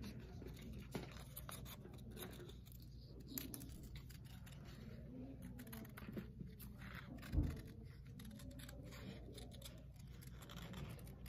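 Scissors snipping through paper in short, irregular cuts, faint, with a single dull thump about seven seconds in.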